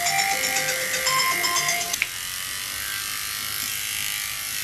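Electric dog grooming clippers running with a steady buzz while shaving the fur on a poodle puppy's head. Background music plays over the first two seconds, then stops.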